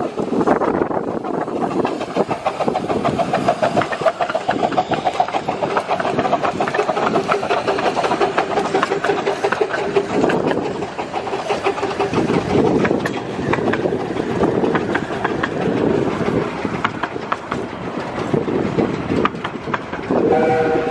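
Two 15-inch-gauge miniature steam locomotives working a train past at close range, their exhaust chuffing, then the coaches' wheels clattering over the rail joints as they roll by. A whistle starts just before the end.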